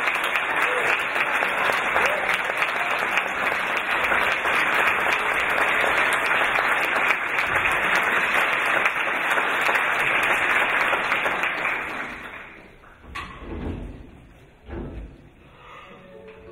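Audience applauding steadily in a concert hall, the clapping dying away about twelve seconds in. A couple of low thumps follow as it fades.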